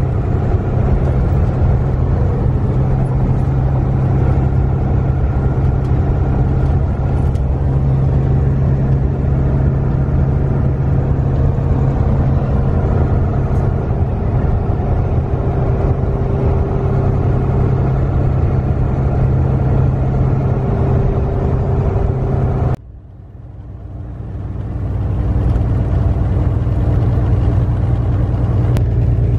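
Semi-truck engine and road noise while driving: a steady drone. About 23 seconds in it drops off suddenly, then swells back up over about two seconds.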